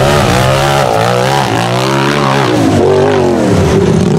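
Tube-chassis UTV buggy engine revving hard on a hill climb, its pitch rising and falling several times as the throttle is worked on and off.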